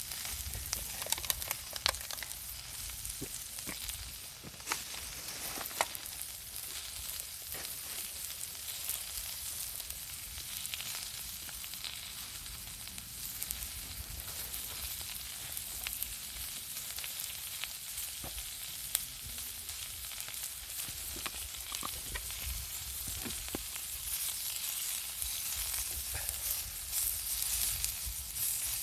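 Food frying on a hot thick iron griddle: a steady sizzle with scattered sharp crackles.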